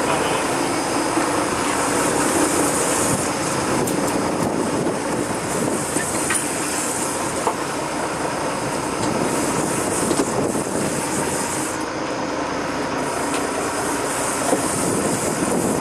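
Fishing boat's engine running steadily under way, mixed with water rushing along the hull and wind on the microphone.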